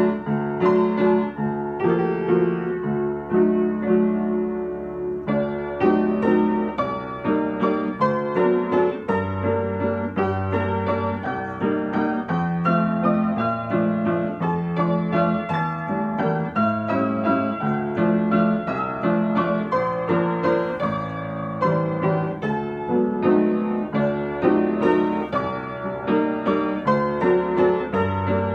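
Acoustic upright piano played solo: a continuous stream of notes over held bass notes.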